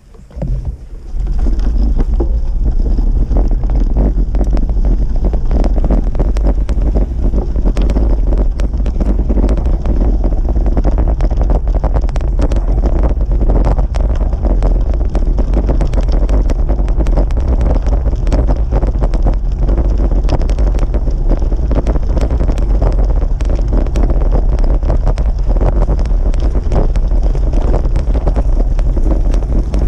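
Wind buffeting the microphone of a moving bicycle, a loud steady rumble, with many small clicks and rattles from the tyres and bike on the crushed-gravel trail. It jumps up about a second in as the riding gets under way.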